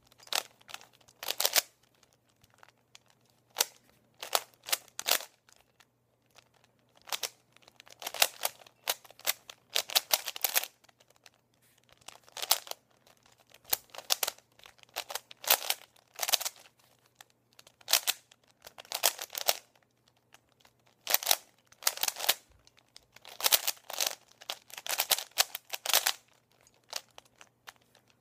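A 3x3x3 Rubik's Cube being solved by hand: its plastic layers turned in quick runs of clicking and rasping, bursts of a second or two separated by short pauses.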